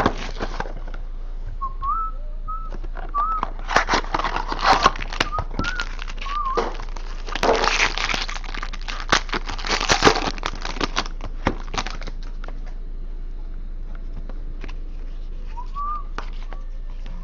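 A person whistling a few short, wavering notes while handling and opening a trading-card mini box, with crackling and rustling of packaging. The rustling is busiest in the first twelve seconds, and the whistling returns briefly near the end.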